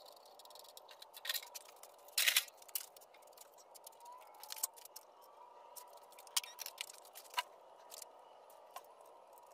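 Scattered metal clicks and knocks from handling the parts of an air-cooled VW engine being torn down. The loudest is a short clatter about two seconds in.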